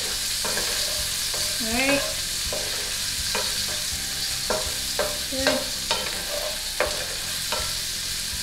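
Diced carrots sizzling in a frying pan as they sauté, with a wooden spatula stirring them: a steady hiss broken by short scrapes and taps of the spatula against the pan every second or so, and a brief squeak of the spatula about two seconds in.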